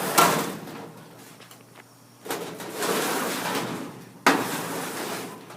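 A shed's sliding door rolling along its track, sliding easily, in three runs. The last run begins with a sudden knock about four seconds in and fades out.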